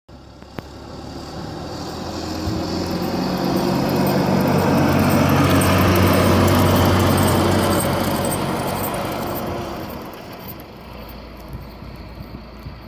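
Diesel dump-truck snowplow driving past, its engine and road noise growing louder to a peak about six seconds in, then fading away.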